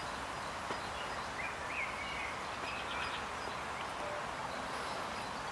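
Steady outdoor background noise with a few faint, short bird chirps about one and a half to three seconds in.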